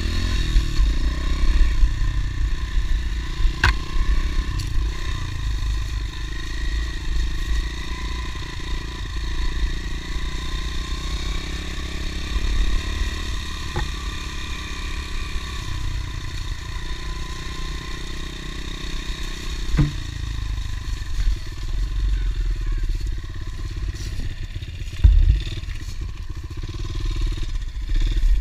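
Honda CRF110 pit bike's small single-cylinder four-stroke engine running at low, fairly steady throttle, its pitch wavering gently, over a constant low rumble. Occasional sharp knocks and clatter from the bike jolting over rough ground.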